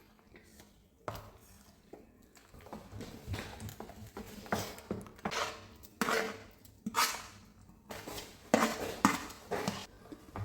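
Kitchen clatter: a run of knocks and short scrapes of dishes and utensils, growing busier and louder from about four seconds in.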